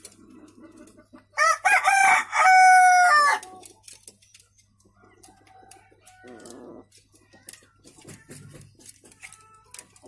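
Madura gaok rooster crowing once, a loud call of about two seconds starting about a second and a half in. A short, quieter cluck follows a few seconds later.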